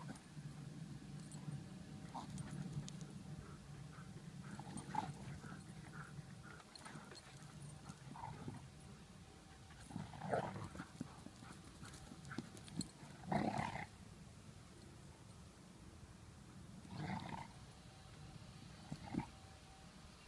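A German Shepherd and a German Shepherd mix play-fighting, with low growling through the first several seconds. Three short, louder dog vocalizations come at intervals in the second half.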